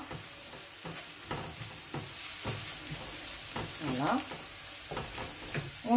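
Grated carrot and onion frying in hot oil in a frying pan, sizzling steadily while being stirred, with short scrapes and taps of the utensil against the pan.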